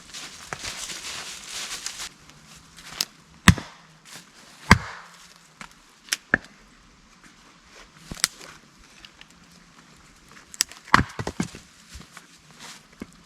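Firewood being chopped: a series of sharp, irregular knocks of a blade striking wood, the loudest a few seconds in and again near the end.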